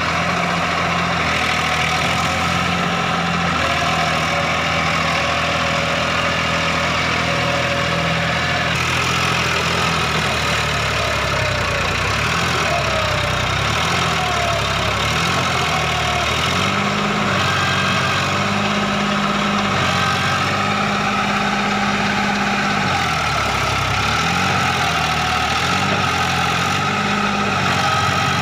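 A vehicle engine running at a steady pitch. From about ten seconds in, its pitch rises and falls again and again, as when it revs and eases off.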